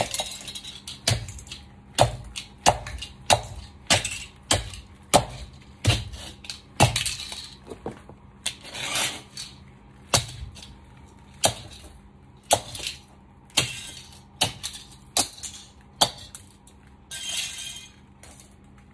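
Stiletto heels striking a tiled floor and crushing small toy cars underfoot. It is an uneven series of sharp clicks and cracks, about one or two a second, broken by several longer crunching, grinding stretches as the plastic gives way.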